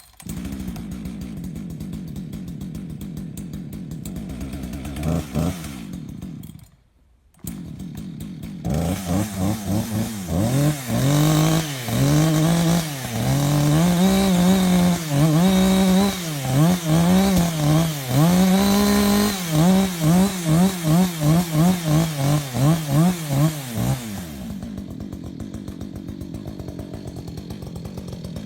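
Chainsaw engine running. From about 9 s it revs up and down over and over, the revs coming quicker near the end, then it settles back to a steady run. There is a brief near-silent break around 7 seconds in.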